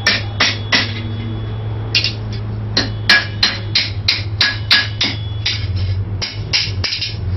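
Hand hammer striking hot steel bar stock on an anvil in a steady rhythm of about three blows a second, each blow ringing. There is a short pause about a second in before the hammering resumes. A steady low hum runs underneath.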